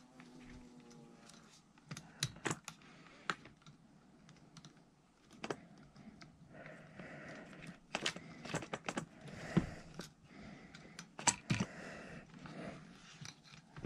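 Irregular small clicks and taps of plastic and metal parts as a carburetor and its throttle linkage are worked back into place by hand on a Stihl FS 55 R trimmer engine.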